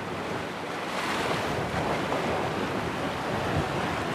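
Sea swell washing over shore rocks at high tide: a steady rush of surf that swells about a second in, with wind buffeting the microphone.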